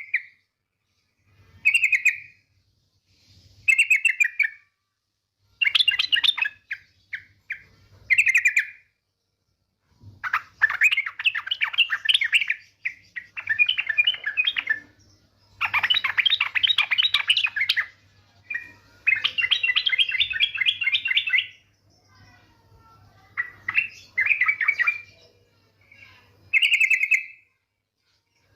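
Female yellow-vented bulbul (trucukan) calling. Short bubbling calls come about every two seconds at first and again near the end, with long, rapid chattering phrases through the middle.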